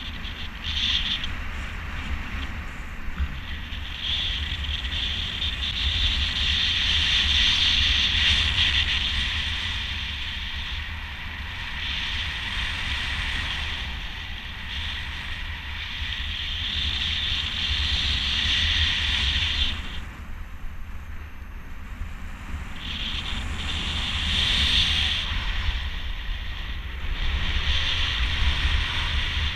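Wind rushing over the camera's microphone in flight under a speedflying wing: a constant low buffeting with a hissing rush on top that swells and eases every few seconds, dropping off briefly about two-thirds of the way in.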